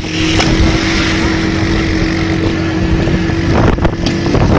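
Motorcycle engine running at a steady speed with wind rushing over the microphone; the engine's steady note breaks off about three and a half seconds in.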